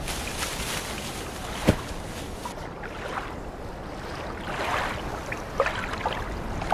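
Water lapping and splashing against a rocky shore, with small scattered clicks and one sharp knock a little under two seconds in.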